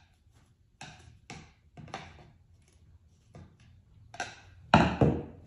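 Plastic sponge filter media being pushed down inside a 3-inch PVC pipe with a rod: a string of irregular knocks and scrapes against the pipe, the two loudest close together near the end.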